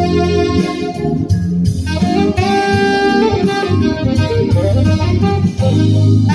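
Saxophone playing a jazz melody of held notes, with a band's low bass line underneath.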